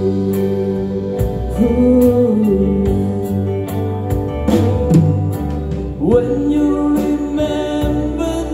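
Live soft-rock band playing an instrumental passage between sung lines: electric guitars, bass guitar, drums and congas under a lead line of held notes that bend and slide, from the saxophone.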